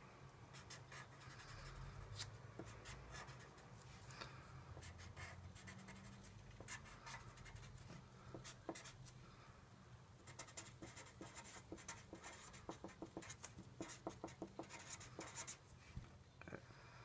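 Felt-tip marker drawing and writing on a sheet of paper on a table: many short, faint strokes, coming thicker in the second half.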